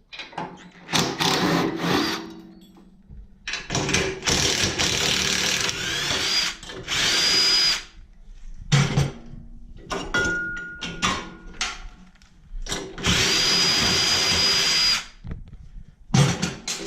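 Power drill run in several bursts of a few seconds each, its motor whine rising and then holding steady, with short knocks of metal parts in the gaps. It is backing out bolts during the tractor's teardown.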